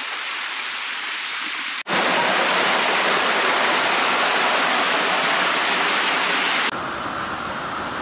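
Rushing water of a mountain waterfall, a steady, loud noise. It jumps abruptly louder about two seconds in and drops back to a lower level near the end.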